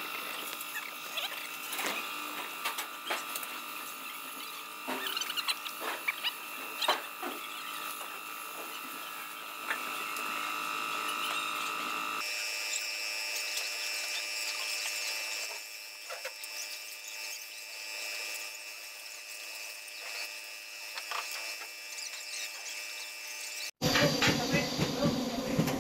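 Steady high-pitched whine of a running machine, with scattered clicks and knocks of work going on around it. The sound changes abruptly about halfway through and again near the end.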